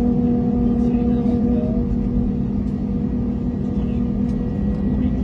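Airbus A321neo's CFM LEAP-1A turbofan engines running, heard from inside the cabin as a steady hum of several tones over a low rumble. Near the end one tone begins to rise slowly.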